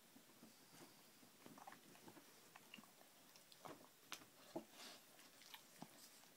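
Near silence with faint, irregular small clicks and soft rustles from a short-haired dog being scratched on the head and chin in bed.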